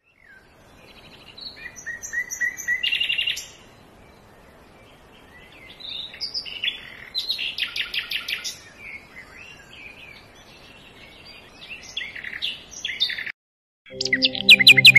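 A small songbird singing: varied high chirps and whistles, with fast rattling trills about three seconds in and again around seven to eight seconds. Near the end, after a brief silence, music starts under more chirping.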